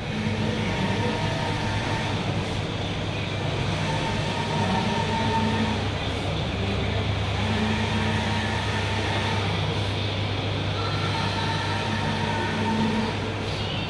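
Large-format solvent flex printer running as it prints: a steady low hum with a whirring whine that swells and fades every couple of seconds as the print carriage sweeps back and forth across the banner.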